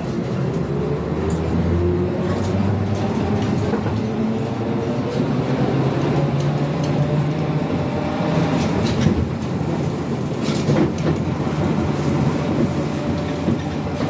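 Cabin of a ZiU-682GM1 trolleybus under way: the electric traction motor's whine glides in pitch over road rumble and body rattle. A few sharp clicks and knocks come around the middle.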